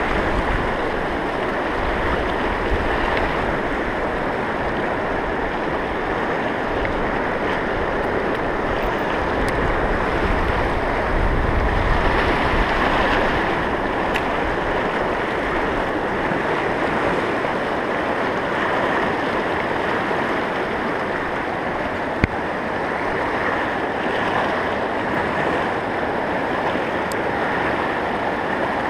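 Fast mountain river rushing over rocks through whitewater riffles, a steady loud rush of water, with low gusts of wind on the microphone at times and a single sharp click about two-thirds of the way through.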